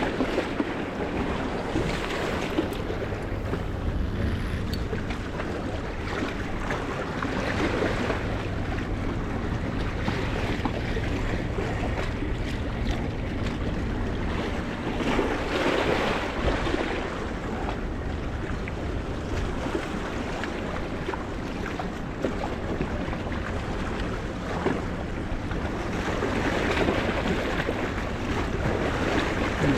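Sea waves washing and splashing against a rocky shore, rising and falling in slow swells, with wind buffeting the microphone and a steady low rumble underneath.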